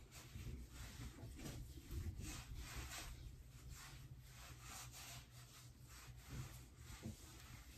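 Fingertips rubbing face cream into the skin of the neck and jaw: faint, soft swishing strokes, about two or three a second.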